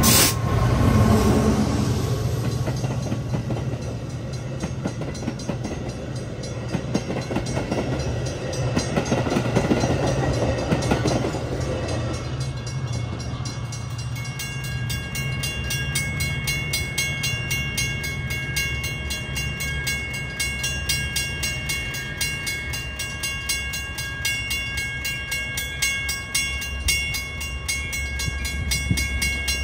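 A passenger train running on the rails over a steady low engine rumble. The rolling noise swells and then eases off about twelve seconds in, leaving the rumble with a faint, steady high-pitched whine.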